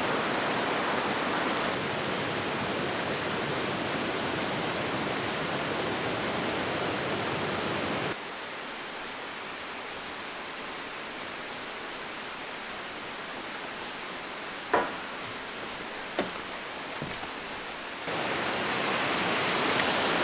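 Steady rush of falling water from a waterfall. It drops suddenly to a quieter rush about eight seconds in and comes back louder near the end, with a couple of brief knocks in the quieter stretch.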